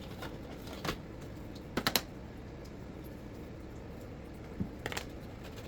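A few sharp clicks and taps of small hard parts being handled. The loudest is a quick cluster about two seconds in, and a pair comes near the end.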